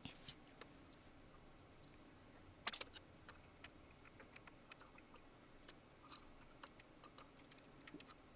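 Mostly near silence with scattered faint clicks and light taps from handling small parts of an opened mixing console, with a brief cluster of louder clicks about a third of the way in.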